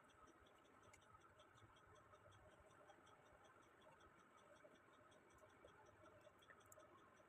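Near silence: faint room tone with a faint, rapid, regular ticking, about four ticks a second.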